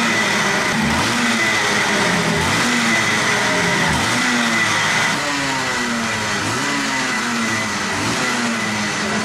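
Two-stroke kart engine running on its stand and revved up and down in quick repeated blips, about once a second.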